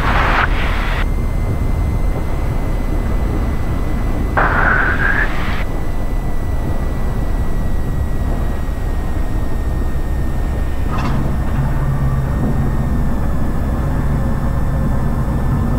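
Cessna 172 cockpit noise during the landing rollout: the engine near idle and the airframe rumbling steadily over the runway. Two short bursts of hissy noise stand out, one at the very start and one about four and a half seconds in, and a low hum joins the rumble about eleven seconds in.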